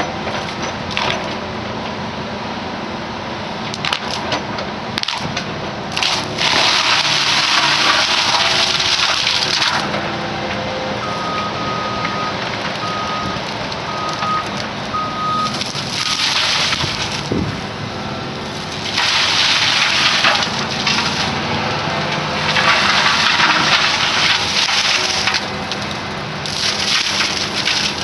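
Excavator-mounted mower head grinding through brush and small trees, the machine's engine running steadily under repeated loud bursts of shredding noise lasting a few seconds each. Four short beeps sound near the middle.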